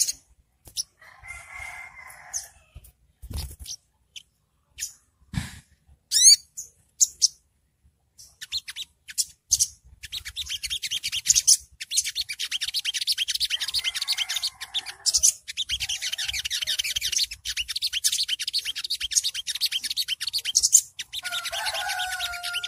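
Olive-backed sunbird (sogok ontong) calling: sharp separate chips and a quick zigzag trill at first, then from about ten seconds in a fast, continuous, high-pitched chattering song, the 'ngriwik' style. A few lower calls sound underneath, near the start, in the middle and at the end.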